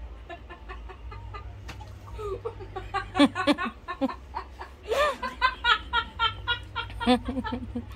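People laughing in a run of short, high-pitched bursts, thickest from about three seconds in, over a low steady hum.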